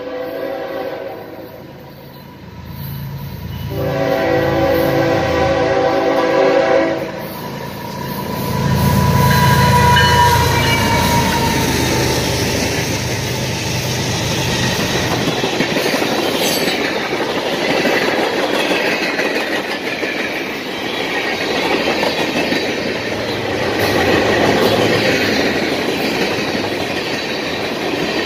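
CSX freight train passing: the locomotive horn sounds a blast that ends about a second in and a longer one about four seconds in, the diesel locomotives rumble past, and then a long string of tank cars rolls by with steady wheel noise.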